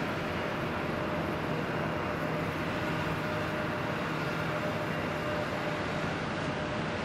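Steady engine rumble with a faint constant hum.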